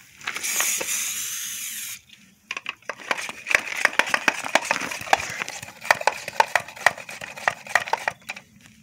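Water from a bottle hitting a freshly welded, still very hot metal fitting: a hiss of steam for about two seconds, then a long run of quick crackles and ticks as the metal cools.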